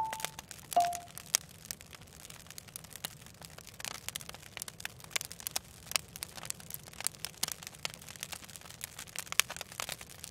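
Campfire crackling, a homemade sound effect of irregular sharp crackles and snaps. Two brief high squeaks sound within the first second.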